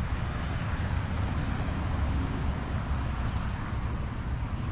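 Wind noise on the microphone, a steady low rumble, over general street traffic noise.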